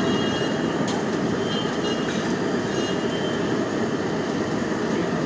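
A large batch of potato fritters deep-frying in a kadai of hot oil, a steady dense sizzle.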